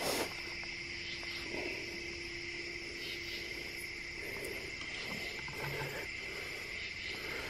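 A steady, unbroken chorus of night insects, with a few faint soft rustles.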